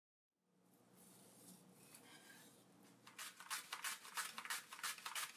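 Onion being sliced on a plastic mandoline slicer: after a couple of seconds of faint room tone, quick repeated scraping strokes, about four a second, as the onion is pushed back and forth over the blade.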